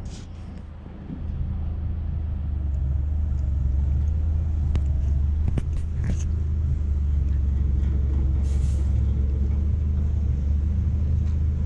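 Engine of the vehicle carrying a snowplow, running with a steady low drone that grows louder about a second in, with a few light clicks.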